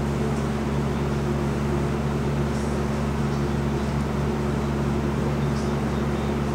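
Steady, unchanging electrical or machine-like hum: a constant low drone with several steady tones over a background hiss.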